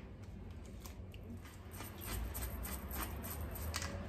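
Faint handling sounds at a kitchen counter: a few soft clicks, then from about halfway through a run of light clicks and taps several times a second, over a low steady hum.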